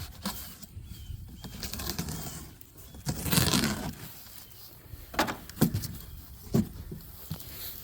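A large cardboard shipping box being opened and unpacked: rustling, with a louder scraping rustle about three seconds in, then several sharp knocks and clicks.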